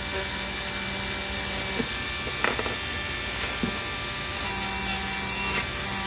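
Rotary tool (moto tool) with a wire cup brush running steadily, a whine with a grinding hiss as it polishes the metal electrical-pickup contact on a model locomotive's truck frame.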